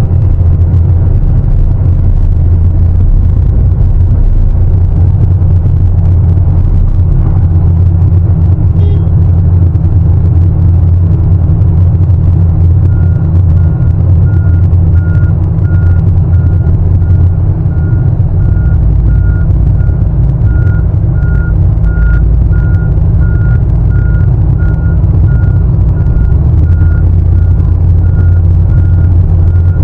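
Heavy diesel mining machinery running with a loud, steady low drone. About halfway through, a reversing alarm starts beeping steadily at a single high pitch, about one and a half beeps a second.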